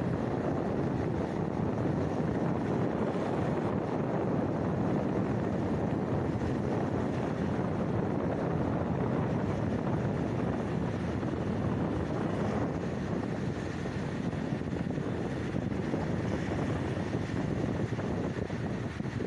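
Steady rushing noise of wind and sea, with wind buffeting the microphone.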